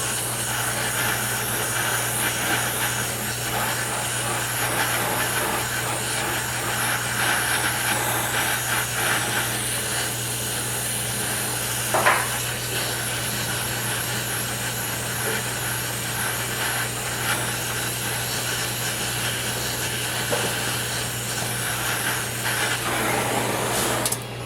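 Handheld gas torch flame hissing steadily while it heats a rusted nut to free a seized lower control arm bolt. There is a single sharp clink about halfway through, and the hiss cuts off abruptly at the very end.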